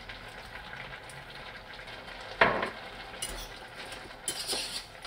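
A spoon stirring carrots and cauliflower in a steaming saucepan, over a faint steady hiss from the hot pan. There is one sharp knock about halfway through, and short scraping hisses near the end.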